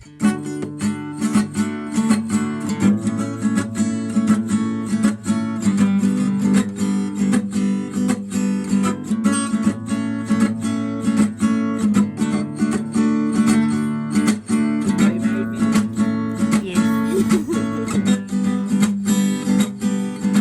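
Background music: strummed acoustic guitar playing chords in a steady rhythm, starting abruptly.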